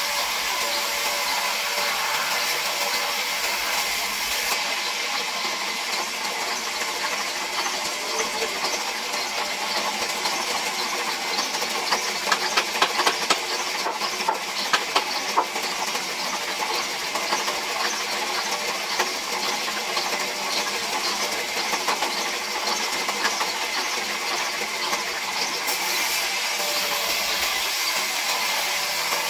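Large vertical band saw running steadily and ripping a hardwood slab into planks, a constant hissing whine of blade and sawdust. A handful of sharp wooden knocks come in the middle, as cut blocks are handled on the steel table.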